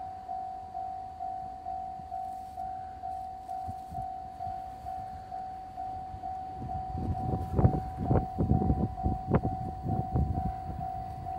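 Level-crossing warning alarm ringing on one steady pitch, about two strikes a second. From about six seconds in, an approaching JR Freight DF200 diesel-electric locomotive with its container train adds a rising rumble with sharp clacks of wheels over the rails, which becomes the loudest sound.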